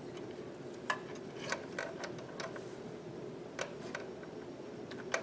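Scattered light clicks and taps as a small metal linkage rod is worked by hand into the carburetor of a 5 hp Briggs & Stratton engine, over a steady low hum.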